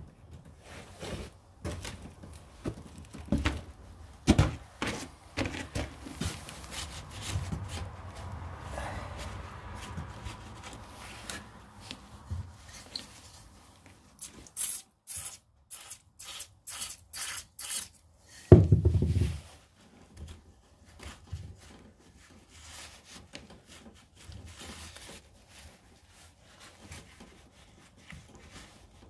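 Paper towel rubbing and wiping lubricant off metal bolts, with scattered handling clicks. About halfway through comes a quick run of sharp clicks, then a heavy thump, the loudest sound.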